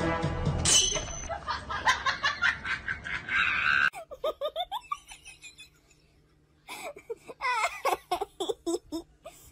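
Human laughter in quick repeated bursts, following a noisy stretch that cuts off abruptly about four seconds in.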